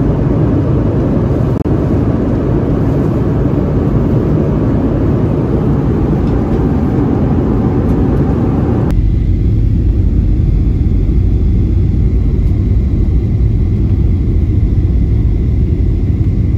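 Jet airliner cabin noise in flight: a loud, steady rumble of engines and rushing air. About nine seconds in it switches abruptly to a duller, lower rumble with the upper hiss gone.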